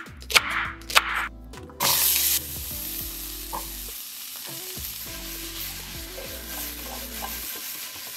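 A few knife chops on a wooden cutting board, then sizzling starts suddenly as chopped okra goes into a skillet greased with melted vegan butter over medium heat. The sizzle is loudest for about half a second and then settles into a steady sizzle.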